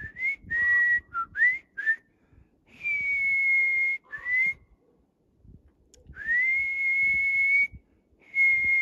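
A person whistling a tune: a quick run of short notes that slide upward, then longer notes that rise and hold steady at a high pitch for a second or so each, with short pauses between.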